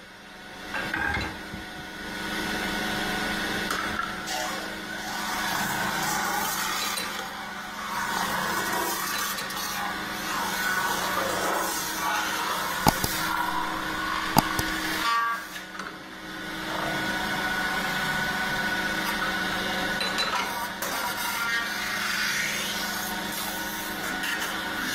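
Metal-spinning lathe running with a steady hum while a hand-held spinning bar rubs and scrapes against the whirling sheet-metal blank, pressing it into shape over the mandrel. Two sharp clicks come about halfway through, and the sound briefly drops away a little later.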